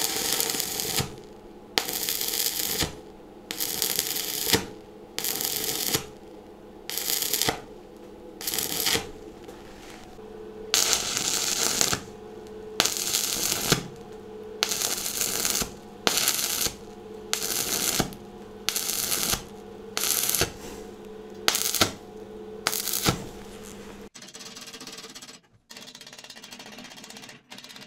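Stick (MMA) welding arc crackling in bursts of about a second, repeated roughly every second and a half, as the electrode is struck, pulled off and brought back in the interrupted-arc (whip) technique. It is laying an overhead weld that joins a steel nut to thin-walled rectangular tube, and the arc stops near the end.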